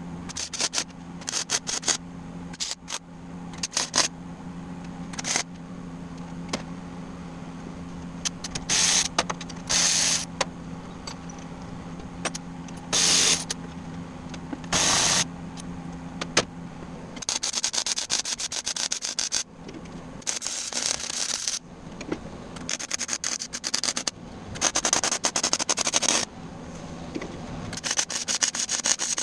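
MIG welder arc crackling and sizzling in many short bursts, cut abruptly one after another, with longer runs of crackle in the second half. A steady low hum runs under the first half and stops about 17 seconds in.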